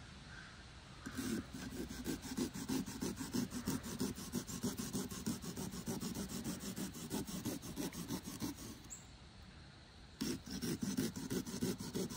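Small serrated pumpkin-carving saw sawing through a pumpkin's rind and flesh in quick, short back-and-forth strokes. It pauses for a couple of seconds about two-thirds of the way through, then resumes.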